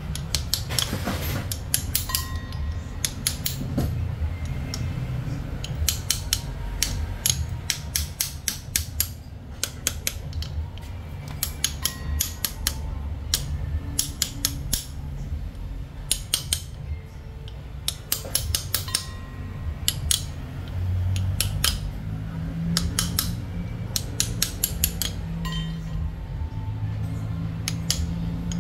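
Socket ratchet clicking in quick runs of sharp metallic clicks as the handle is swung back and forth on a bolt at the camshaft end of a Mitsubishi 4G15 cylinder head, over a low steady hum.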